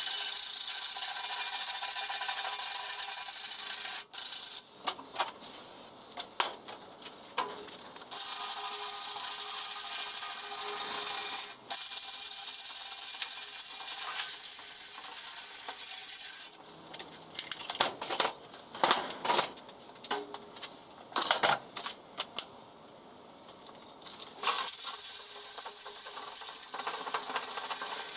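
Sanding of rust off a metal jerry can, most likely with a power tool, running in long spells with a faint steady motor tone. It stops about four seconds in and again from about sixteen to twenty-four seconds, and scattered knocks and clicks fill those gaps.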